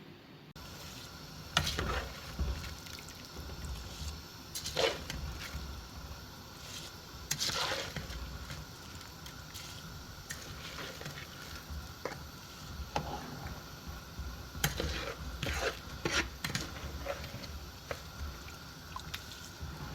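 Cooking sounds: irregular clinks, knocks and scrapes of food preparation over a low steady background with a faint steady tone.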